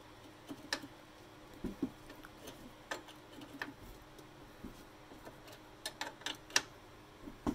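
Steel open-end wrench clicking on a 14 mm nut at the rear strut, worked back and forth in short strokes to loosen the nut through gunked threads: scattered sharp metallic clicks at an irregular pace.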